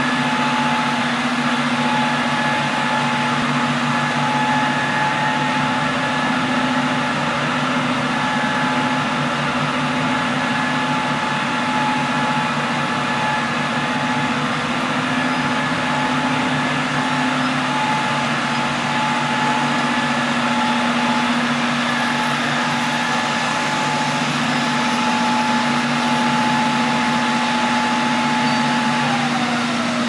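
BTU/RTC PV-609 solar furnace running: a steady whir and rush of air with a low hum and a thin high tone, which slides down in pitch near the end.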